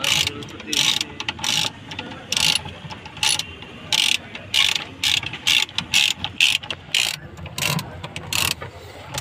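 Hand ratchet wrench being worked back and forth, its pawl clicking in short bursts about two a second.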